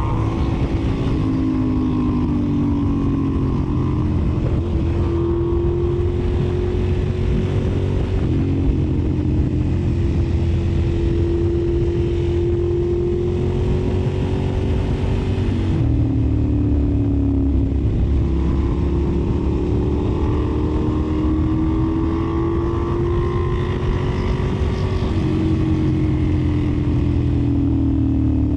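Ducati Monster 1100's air-cooled L-twin engine with an aftermarket Arrow exhaust, running under load. Its note climbs slowly in pitch and falls back several times.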